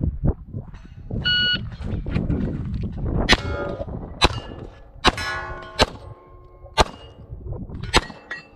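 Electronic shot timer beeps once, then a semi-automatic pistol fires six shots about a second apart, with steel target plates ringing after the hits. The last shot comes about 6.7 seconds after the beep, the run time called out afterwards.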